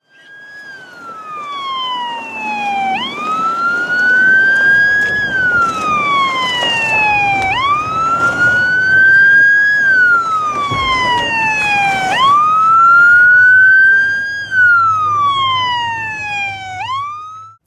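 Emergency wail siren sounding, its pitch jumping up, climbing slowly to a peak, then sinking slowly, over and over about every four and a half seconds; it fades in over the first few seconds.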